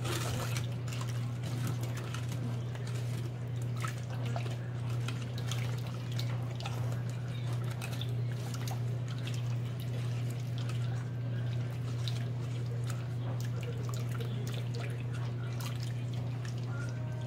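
Plastic spoon stirring jello powder into hot water in a stainless steel bowl: liquid sloshing and swirling, with many light taps and scrapes of the spoon against the metal, over a steady low hum.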